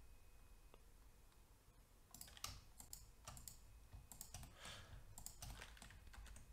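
Faint, irregular clicking of a computer keyboard and mouse buttons, a string of quick clicks starting about two seconds in.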